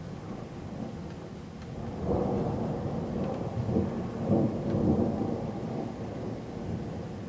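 Thunder from a supercell thunderstorm rumbling, swelling about two seconds in and rolling on for several seconds, over steady heavy rain.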